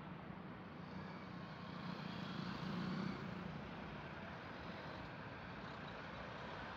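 Road traffic: cars driving past over a steady low hum, with one vehicle passing close and loudest about three seconds in.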